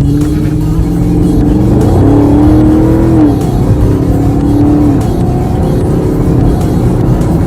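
A V8 car engine running under throttle, its pitch rising and dropping as the car accelerates and eases off.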